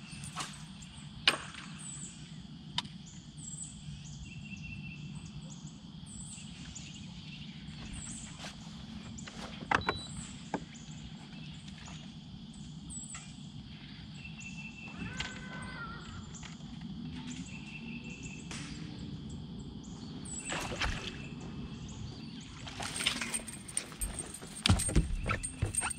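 Quiet boat-deck ambience on a calm lake: a steady low hum, short high bird chirps repeating about once a second, and a few sharp knocks on the boat. In the last few seconds a burst of louder handling noise as a largemouth bass is hooked and reeled in.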